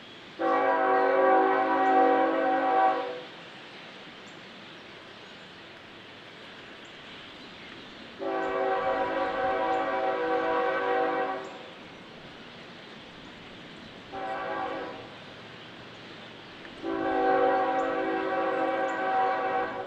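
Diesel freight locomotive's air horn blowing the grade-crossing signal: two long blasts, a short one, then a long one, each a chord of several notes. A steady background hiss lies under it.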